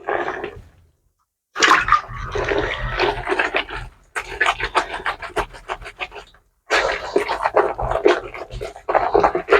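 Wet clothes being scrubbed by hand in water, fabric rubbed against fabric in quick repeated strokes with some sloshing.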